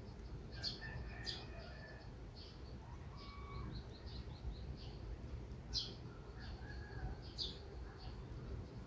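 Small birds chirping and twittering: many short, high notes throughout, with a few louder sharp calls about a second in, near the middle and toward the end, over a steady low background rumble.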